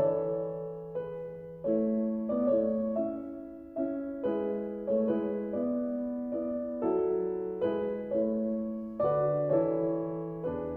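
Background music: a slow, gentle piano piece, single notes and chords struck every half second or so and left to ring and fade.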